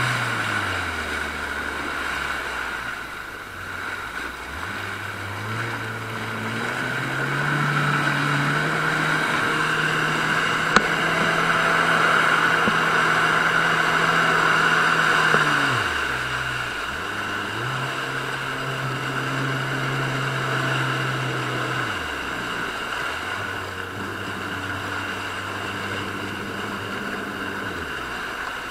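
Motorboat engine running under way while towing, its note dropping and rising again with the throttle and easing to a lower note near the end, over rushing wake water and wind on the microphone.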